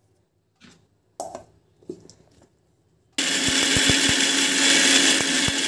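A few light knocks as the jar is handled, then about three seconds in an Indian mixer grinder (mixie) starts abruptly and runs loud and steady, grinding tomatoes and spices into a paste for rasam.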